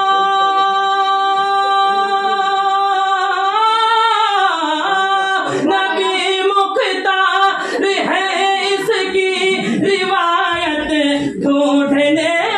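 A man singing a Urdu naat unaccompanied. He holds one long high note for about three and a half seconds, then winds into ornamented, wavering phrases. Other voices overlap in the second half.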